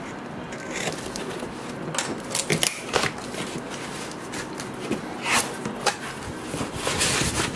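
Packing tape being picked at and torn off a cardboard box, then the flaps pulled open: scattered crackles and rustles of tape and cardboard, coming in clusters.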